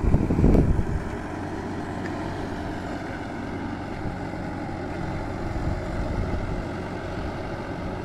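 Farm tractor engine running steadily at a distance while it works a rotavator through a flooded rice paddy. Wind buffets the microphone for about the first second.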